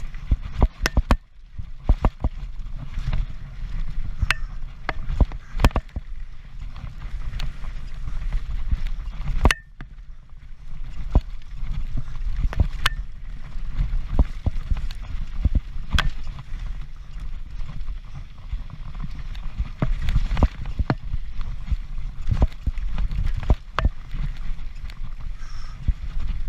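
Transition Patrol mountain bike racing down a rough trail: a steady low rumble of tyres over rocks and ground, with frequent sharp knocks and rattles from the bike, briefly quieter about ten seconds in.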